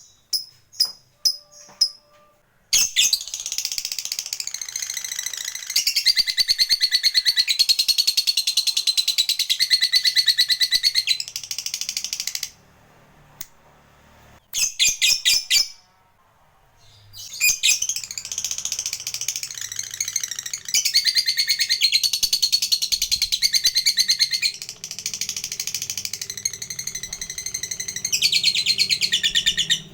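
Lovebird giving its long 'ngekek' call, a shrill, very rapid chattering trill. A few separate sharp chirps come first. One long trill lasts about ten seconds, then a pause with a brief chirping burst, then a second trill of about twelve seconds.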